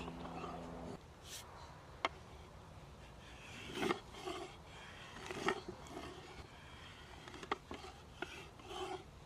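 A rasp or file worked over wood in short, irregular strokes, with a few sharp clicks between them. A low steady hum stops about a second in.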